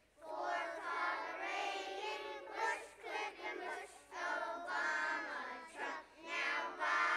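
A group of young preschool children singing a song together, in four sung lines with short breaks between them.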